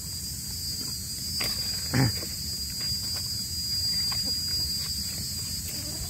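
Insects chirring steadily at one high pitch over a low rumbling noise, with one short falling grunt-like sound about two seconds in.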